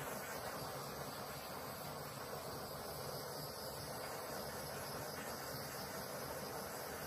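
Small handheld torch hissing steadily as its flame is played over wet acrylic pour paint.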